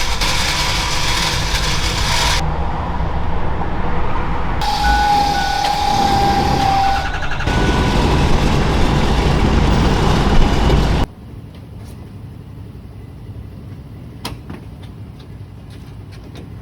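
Vehicle noise in several short clips that cut abruptly from one to the next, with a brief steady tone partway through; about two-thirds of the way in, it drops to a much quieter stretch with a few light clicks.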